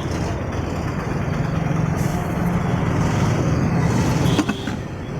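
Steady mechanical running noise with a low hum, which drops away about four and a half seconds in.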